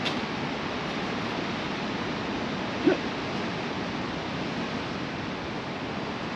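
Steady, even rushing outdoor noise, with one short pitched sound about three seconds in.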